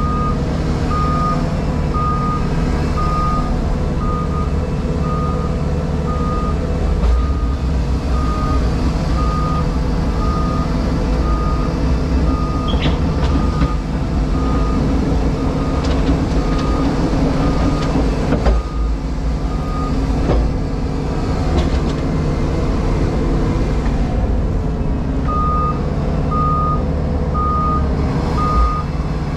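Heavy diesel plant engine running steadily, heard from the cab of a JCB Pothole Pro, with a reversing alarm beeping about once a second; the beeping stops partway through and starts again near the end.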